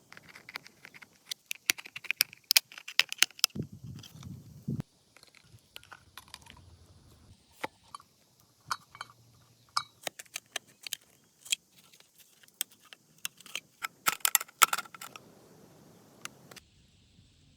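Small metal pieces clinking and tapping as they are handled, in scattered bursts of sharp clicks, with a denser flurry near the start and again near the end.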